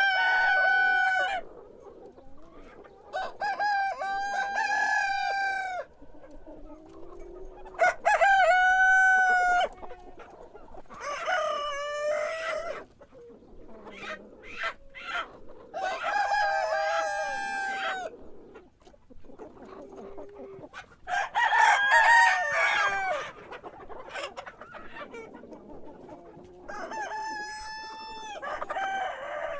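Rooster crowing over and over, about seven long cock-a-doodle-doo calls of roughly two seconds each, a few seconds apart, with faint clucking between the crows.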